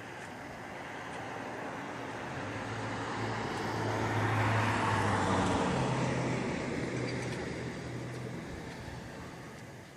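A car driving past on the street: its engine and tyre noise grow steadily louder, peak about halfway through, then fade away.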